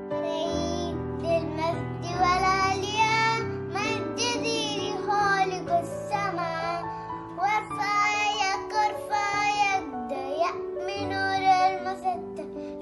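A child singing a song over instrumental backing music.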